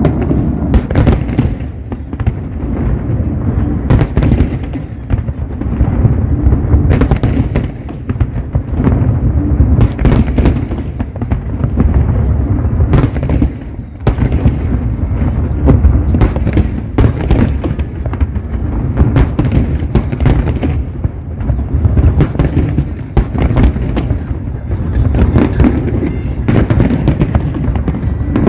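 Aerial fireworks bursting continuously: a dense run of sharp cracks and bangs over a steady low rumble of booms, with a brief lull about halfway through.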